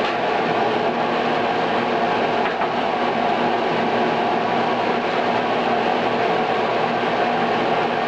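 Blower of a dryer-vent pressure test rig running steadily, pushing air out of an open metal duct after the vent hood has been lifted off: a constant rush of air with a steady hum of a few tones underneath.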